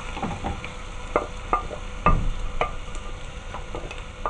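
Spatula stirring and scraping diced onion and peppers in a pot, with a few irregular light knocks against the pot, over a low sizzle of the vegetables sautéing in oil.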